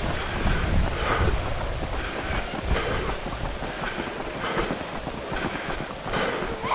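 A runner's footsteps on pavement at a steady race pace, with a regular beat about once a second, over low wind rumble on the action camera's microphone.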